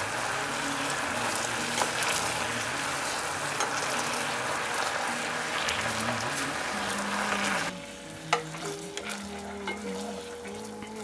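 Sauce sizzling in a hot pot as it is stirred, a steady frying hiss that cuts off suddenly about three-quarters of the way through; a few light utensil clicks follow.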